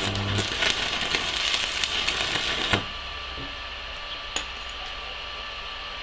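Stick-welding (MMA) arc from a Pocweld MMA 200 mini inverter running with a dense, rapid crackle, then cutting off abruptly about three seconds in as the bead is ended. A few faint clicks follow.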